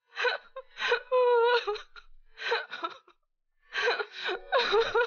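A young woman crying: short gasping sobs and whimpers, with one drawn-out wailing cry about a second in.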